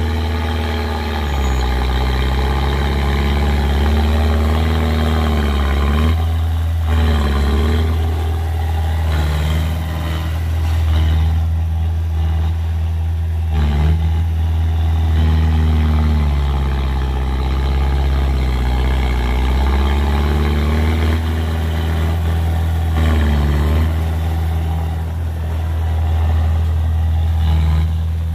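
Small crawler bulldozer's diesel engine running continuously under load while it pushes earth with its blade and backs up, its pitch rising and falling several times as the load changes.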